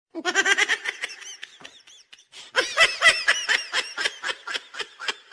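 Cartoonish laughter sound effect: rapid, high-pitched 'ha-ha-ha' pulses in a short burst at the start, then a longer bout of laughing from about two and a half seconds in.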